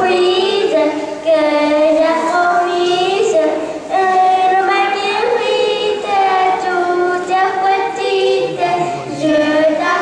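A group of women and children singing a song together.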